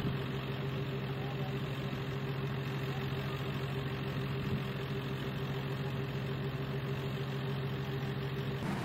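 Van engine idling with a steady hum, heard from inside the cabin; it cuts off suddenly near the end.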